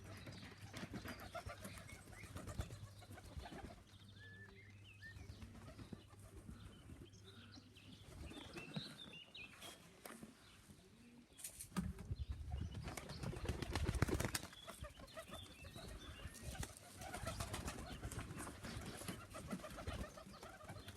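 Homing pigeons around a loft: wing flapping and occasional cooing. About twelve seconds in a louder low rushing noise swells for a few seconds.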